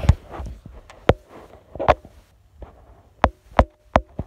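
About six sharp taps and knocks at uneven intervals from a handheld phone or tablet being handled and tapped. The last few come closer together and carry a short ringing tone.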